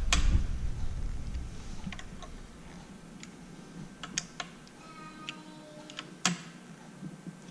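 Scattered light clicks and ticks of a T-handle driver working the cap screws of scope rings as they are snugged down, with the sharpest click a little after six seconds in.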